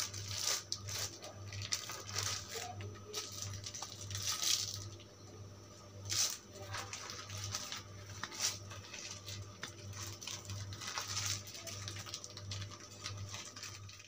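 Wooden bird-cage perch sticks handled and rubbed against each other by hand, making irregular scraping and rustling noises, with a low hum underneath.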